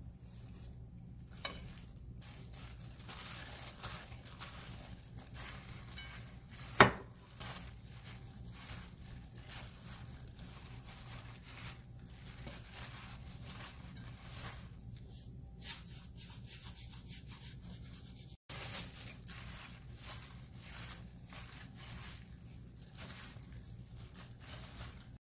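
Dried anchovies and shishito peppers being tossed in a frying pan: a continuous dry rustling and scraping, first from a wooden spatula, then from a hand in a plastic glove crinkling as it mixes. One sharp knock about seven seconds in, over a steady low hum.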